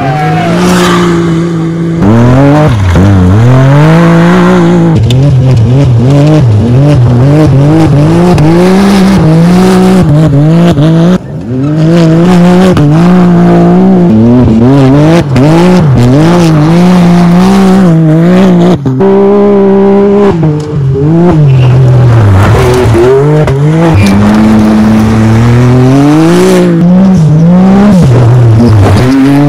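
Side-by-side off-road race buggies driven hard on dirt, engines at high revs, pitch repeatedly climbing and dropping with throttle and gear changes. Several passes follow one after another, with brief dips in sound where they are cut together.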